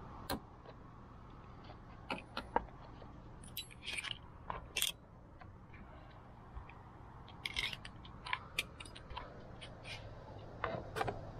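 Torx screwdriver working at a car-body fastener: scattered small clicks and scrapes of metal and plastic, some in quick clusters, over a faint steady hum.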